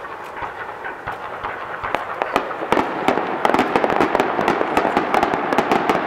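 Fireworks display: many sharp crackling pops from bursting shells over a steady rumbling haze, the pops growing dense and louder about two seconds in.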